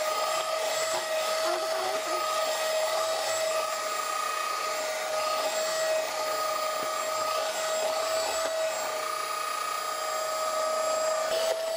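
Philips electric hand mixer running at one steady speed, its motor giving a constant whine as the beaters whip an egg-and-sugar batter to a foam in a plastic bowl.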